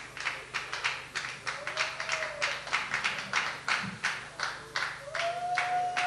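Concert audience clapping in a steady rhythm, about three claps a second. About five seconds in, a steady held musical tone comes in under the clapping.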